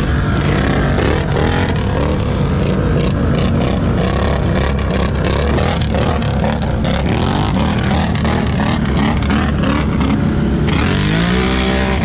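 ATV engine running loudly under throttle, its pitch climbing in a rev near the end.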